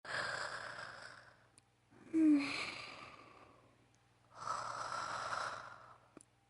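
A woman's voice performing sleepy snoring: a long breath, then a louder snort about two seconds in, then another long breath near the end.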